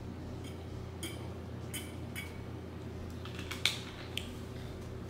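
Faint swallowing sounds as a small plastic bottle is drunk from, then a few light clicks and one sharp tap about three and a half seconds in as the bottle is handled and set down on a glass tabletop.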